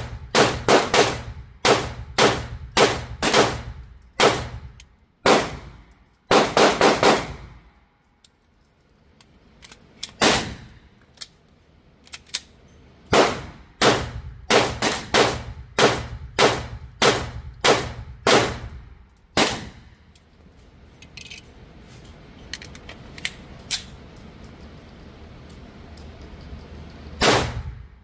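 Gunshots: a steady string of single shots about two a second, a quick burst of several shots together, then after a pause another steady string of shots. A lull with faint hiss follows, and shooting starts again near the end.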